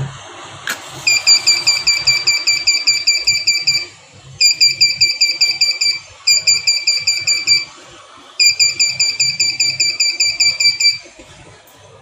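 A match struck with a sharp click, then an Arduino flame-sensor fire alarm's buzzer beeping in rapid high-pitched pulses, about seven a second, in four bursts over several seconds. The alarm is tripped by the sensor detecting the match flame.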